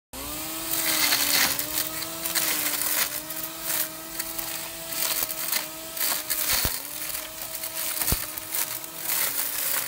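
Small electric grass trimmer running with a steady whine that dips briefly in pitch several times as the head bites, over the rustle and crackle of grass and shrub leaves being chopped.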